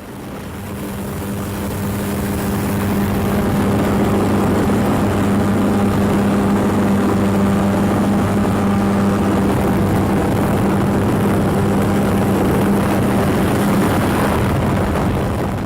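A steady, loud motor drone with a low hum, like an aircraft or propeller engine. It swells over the first few seconds, holds steady, then fades out near the end.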